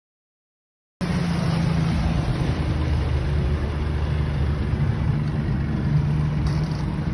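Motorboat engine running at a steady speed, with wind and water noise; it begins abruptly about a second in.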